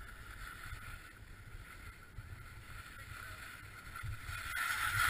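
Hiss of edges scraping and sliding over packed, chopped-up snow, growing louder near the end, over a low rumble of wind on the microphone.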